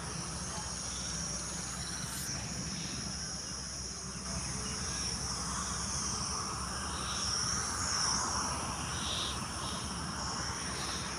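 Steady high chirring of field insects such as crickets, with a low steady rumble underneath.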